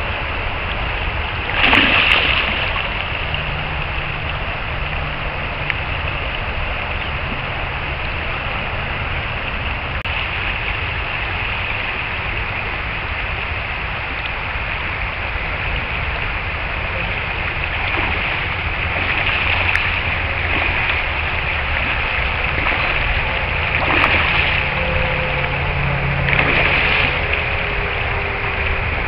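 Shallow river riffle running steadily over rocks, with a few brief louder splashes: one about two seconds in and two more near the end.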